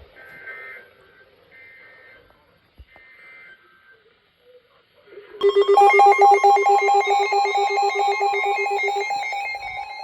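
Three short, faint bursts of EAS SAME data tones, a warbling two-tone digital squawk, mark the end of the alert message. About five seconds in, a loud electronic tone pattern starts, pulsing rapidly with higher tones held above it.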